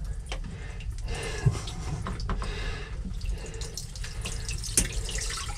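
Water trickling and dripping from a loosened cooler hose, with small clicks and knocks of hands working the hose and clamp.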